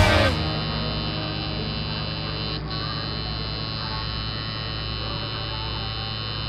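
Background music cuts off at the start, then an electric tattoo machine buzzes steadily as the needle works ink into the skin.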